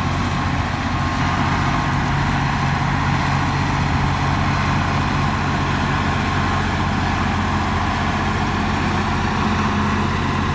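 Komatsu bulldozer's diesel engine running steadily with a low, even rumble, a thin steady whine sitting above it.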